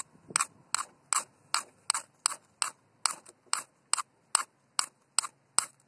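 A ferrocerium fire steel struck again and again with a scraper, a quick sharp scrape nearly three times a second, throwing sparks onto dryer-lint and bird's-nest tinder.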